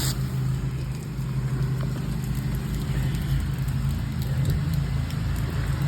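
Gas engine of a pressure washer running steadily at a constant speed, with no spray.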